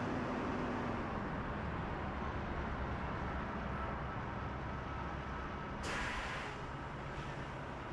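Truck engine idling steadily, with two short bursts of air hiss near the end.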